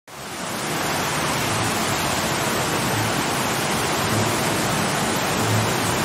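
Waterfall plunging into a pool: a steady, even rush of falling water that fades in quickly at the start.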